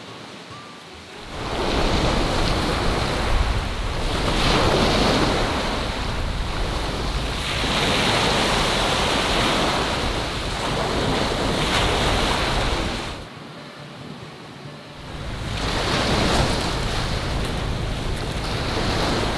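Small waves breaking and washing up a pebbly sand beach, with wind blowing across the microphone. The sound comes in about a second in, swells and eases every few seconds, and drops away briefly for a couple of seconds later on.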